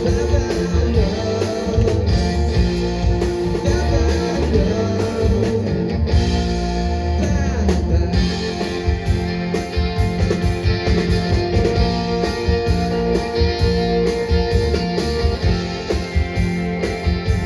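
Live band music: an instrumental passage between verses, led by guitar, with a steady beat.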